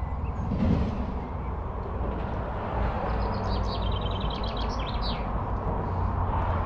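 A small bird singing a rapid trill of evenly repeated high notes for about two seconds in the middle, over a steady low outdoor rumble.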